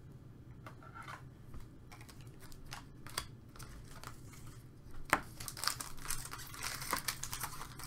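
Trading cards being handled and set down on a tabletop, with scattered light clicks and taps. From about five seconds in, the wrapper of a card pack crinkles steadily as it is picked up and worked open.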